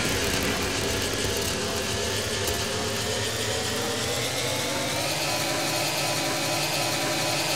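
Sustained drone closing a post-punk record: a steady, engine-like hum with several held tones under a noisy wash, one tone slowly rising in pitch.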